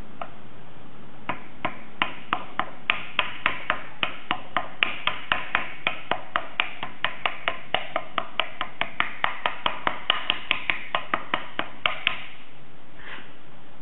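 Rapid, even tapping, about four light strikes a second for some ten seconds: a mechanical seal being driven into its seat in a pump's wear plate with a homemade driving tool.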